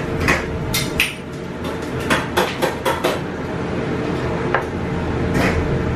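Metal pans, trays and utensils clanking as a chef works at the stove and oven: a quick run of clanks in the first three seconds, then a few single ones, over the steady hum of the kitchen extraction.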